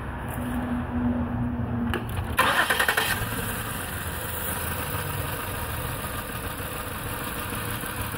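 A 2008 Ford Taurus X's 3.5-litre V6 is cranked by the starter for about two seconds. It catches and flares up briefly, then settles into a steady idle. It is misfiring, with cylinder 1 dead because its injector gets no pulse from the computer.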